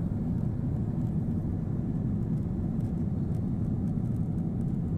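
Steady low rumble of airliner cabin noise from the engines and airflow, even in level throughout.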